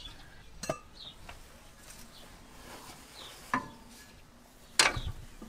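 A hammer striking the starter motor under a 1979 Ford F-150: a few separate metallic knocks a second or more apart, the loudest near the end. The blows are meant to free the starter's Bendix drive, which is stuck out.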